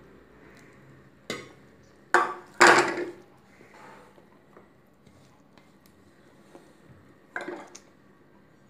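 Stainless-steel kitchenware clanking: a steel saucepan set down and a steel spatula knocking and scraping against a steel plate as hot jaggery syrup is stirred into rice flour for adhirasam dough. The loudest clanks come two to three seconds in, with a few more near the end.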